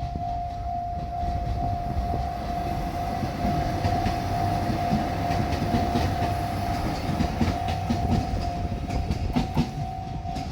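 Japanese level-crossing warning bell ringing steadily while a diesel multiple unit rumbles over the crossing, its wheels clicking over the rail joints. The bell cuts off near the end.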